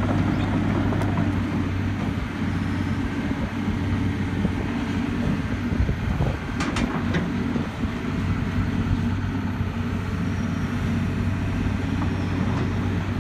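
John Deere 250G excavator's diesel engine running steadily with a low hum, with a few short clicks about halfway through.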